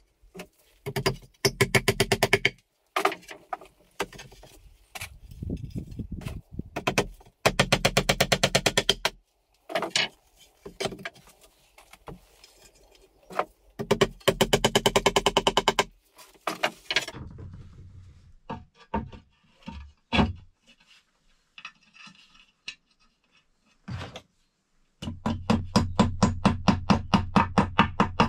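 Small hammer trimming and tapping clay tiles and bricks into place: quick runs of sharp taps, about eight a second, in several bursts lasting one to three seconds, with scattered knocks and scrapes between.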